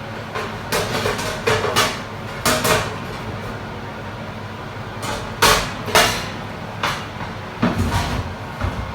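Kitchen clatter: a string of separate knocks and bangs from dishes and doors being handled. There are several in the first three seconds, a quiet stretch, then more from about five seconds in.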